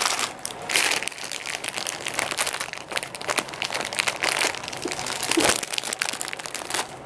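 Small packets of crystal pendants rustling and crackling as they are handled and sorted in the hands, a dense run of quick crackles.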